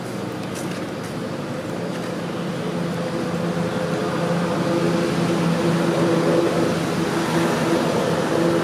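A motor engine running steadily, a low droning hum that slowly grows louder.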